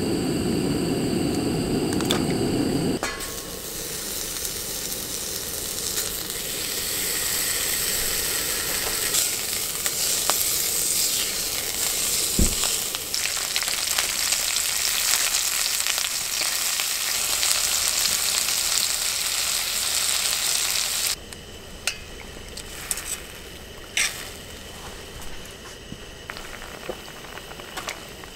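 Thin pork slices sizzling and frying in a cast-iron pot on a portable gas stove, stirred with tongs and a spatula, as a steady high hiss. It opens with about three seconds of a deeper rushing noise. About 21 seconds in, it drops to a quieter simmer with a few sharp clicks as the stew cooks.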